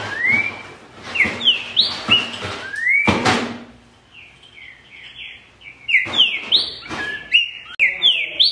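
Green-winged saltator (trinca-ferro) singing: repeated phrases of loud, clear, sweeping whistles, fainter for a moment around the middle, with a short burst of noise about three seconds in.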